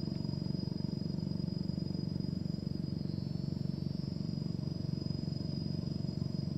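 Low, steady rumble of a small boat's engine running, unchanging throughout, with a thin steady high-pitched insect buzz above it.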